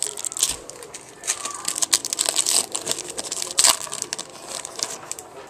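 Foil wrapper of a Bowman Chrome baseball card pack crinkling and tearing as it is pulled open and the cards slid out. The crackling comes in irregular bursts and is loudest about two-thirds of the way through.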